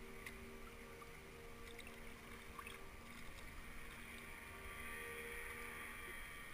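Faint water sounds of a kayak being paddled, the paddle blades dipping and splashing, with a few light ticks.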